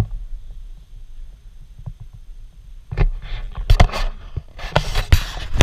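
Handling noise of a handheld action camera being swung about: a constant low rumble on the microphone, then from about three seconds in irregular bursts of rubbing and knocking.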